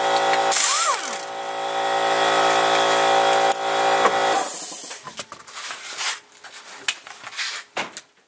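Air impact wrench running on the wheel's lug nuts, a steady mechanical whirr with louder hissing surges about a second in and again near four seconds. It stops about four and a half seconds in, and scattered light clicks and knocks follow.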